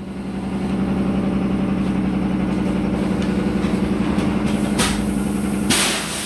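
Factory machinery running with a steady low hum, joined by a short burst of air hiss about five seconds in and a longer one near the end.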